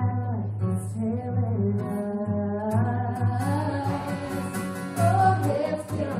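Acoustic guitar played live with a voice singing a melody over it through a small PA.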